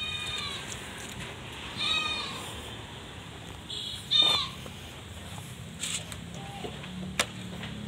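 Goat bleating three times, short high-pitched calls about two seconds apart, the last one falling in pitch. A sharp click comes near the end.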